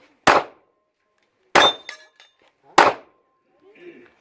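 Three pistol shots fired at a slow, steady pace about a second and a quarter apart, with a fourth at the very end. Each shot is followed by a few faint metallic clinks.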